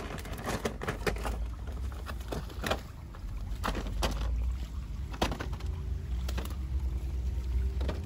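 Water splashing in a shallow stream as a person wades and works a fishing net: about ten irregular sharp splashes, the thickest in the first second, over a steady low rumble.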